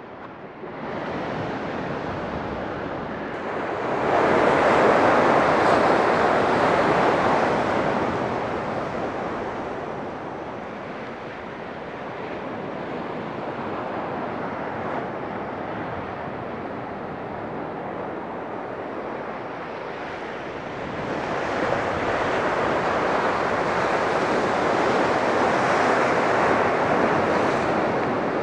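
Sea surf breaking and washing over the rocks of a stone jetty, in a steady rush that swells loudly about four seconds in and again from about twenty-one seconds on.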